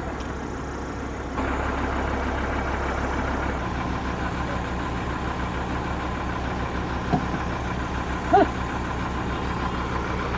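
Vehicle engine idling steadily, a low even hum with a fast regular pulse. A brief pitched call cuts in about eight seconds in.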